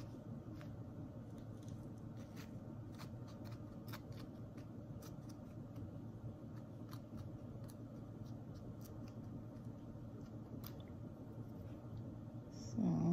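Faint scattered clicks and light handling noises of seeds being dropped and pressed into the cells of plastic seed-starting trays, over a steady low room hum. A brief louder sound comes near the end.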